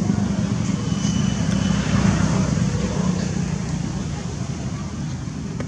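A steady low rumble of outdoor background noise that slowly fades.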